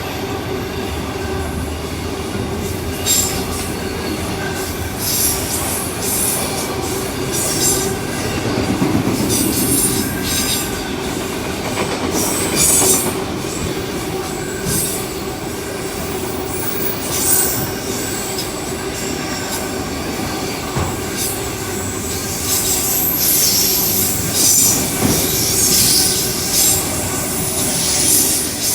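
A train running on the rails: a steady drone with high-pitched wheel squeals that come and go, most often near the end.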